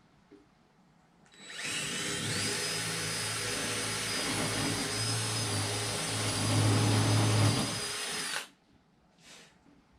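Power drill boring a hole through a wooden panel to start a jigsaw cut-out. It spins up with a rising whine, runs steadily for about seven seconds, then stops suddenly.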